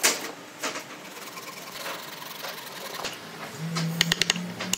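Hand tools working the wooden dowel pegs on a tabletop: a sharp knock at the start and scattered scraping. Near the end comes a quick run of sharp clicks over a low steady hum.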